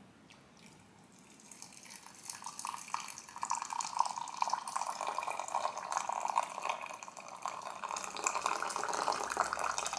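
Hot water poured in a thin stream from a copper pot into a ceramic mug, a steady splashing trickle that starts about a second and a half in.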